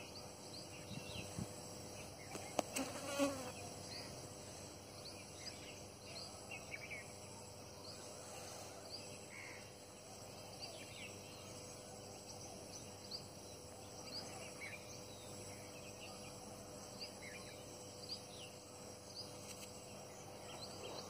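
Steady insect drone, with scattered short faint chirps throughout and a brief sharp knock about two and a half seconds in.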